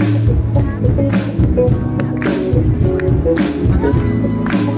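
Live band playing through a PA, with drums and cymbals on a steady beat under bass and chords. A male singer holds a long note near the end.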